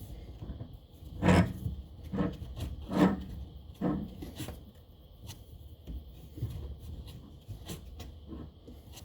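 Ratchet strap being cranked tight to compress a fork spring: four rasping ratchet strokes about a second apart, then lighter clicks and handling.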